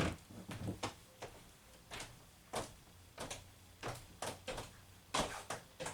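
Irregular sharp clicks and knocks, about a dozen spread over several seconds, with the loudest near the end.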